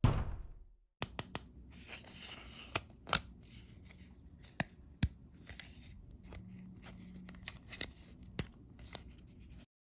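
A sudden low thump that fades over about a second, then crinkling plastic packaging being handled and torn open, with many sharp clicks and snaps throughout.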